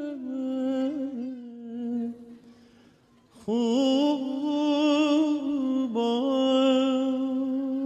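A single voice sings a slow, wordless melody in long held notes with vibrato. It breaks off for about a second near the middle and comes back louder on a new held note.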